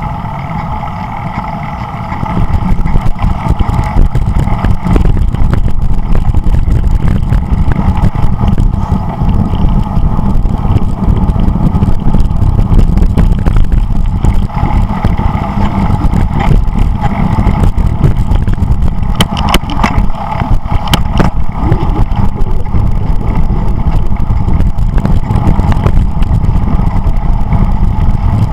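Wind rushing and buffeting over the microphone of a camera riding along on a bicycle, with a few sharp clicks and rattles about two-thirds of the way through.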